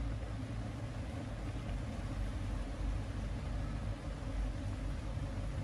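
Steady noise of light rain falling on a pond, with wind rumbling on the microphone.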